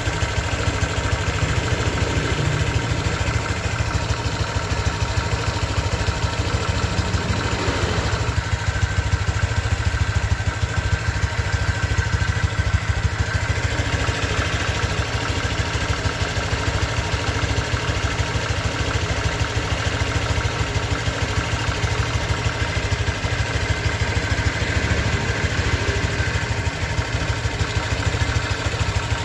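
Honda Vario 125 scooter's single-cylinder engine idling steadily at about 1000 km, early in its break-in; the owner finds it running smoother as it beds in.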